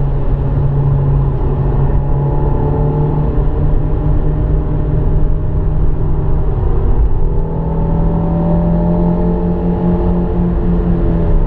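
Renault Clio RS 172's 2.0-litre four-cylinder engine, heard from inside the cabin, running hard at high revs, easing off for a few seconds early on, then pulling strongly again from about two-thirds of the way in, over a constant road rumble.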